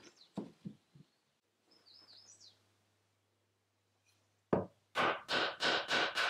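Wooden mallet striking a chisel held upright on a small wooden block: a fast run of sharp blows, about four a second, starting about two-thirds of the way in. Before it, a few light wooden knocks and a bird chirping.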